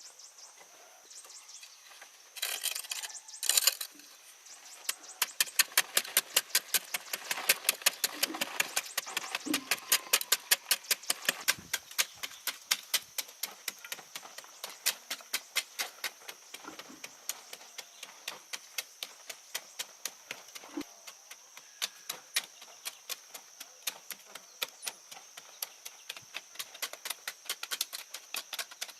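Rapid, regular tapping of a hand tool striking, about three sharp taps a second, loudest in the first part and softer later. Under it runs a steady high insect drone.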